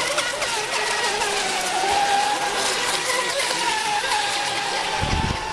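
Several electric radio-controlled racing monohull boats running flat out together, a wavering high whine of their motors and propellers over the hiss of spray. A low rumble comes in near the end.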